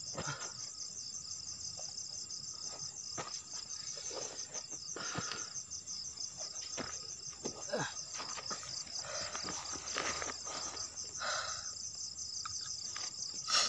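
Crickets chirping in a steady, rapid high-pitched trill, with scattered short rustles and knocks of close handling throughout.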